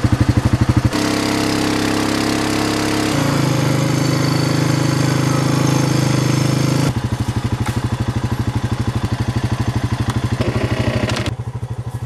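Quad bike engine idling with a fast, even putter, then revving up and running steadily at higher speed for about six seconds, rising a step about three seconds in, before dropping back to idle.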